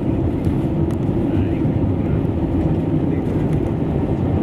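Steady low rumble inside the cabin of an Airbus A320 on the ground after landing: engine noise mixed with the rumble of the wheels, with a few faint ticks.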